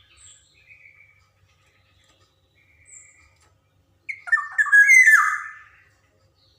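Black-naped oriole singing: a few soft, short calls, then one loud phrase of fluty, sliding whistles about four seconds in, lasting under two seconds.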